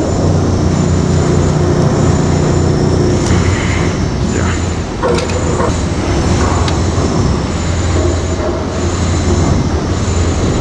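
Steady, loud low machine drone, with a few light knocks and clicks in the middle.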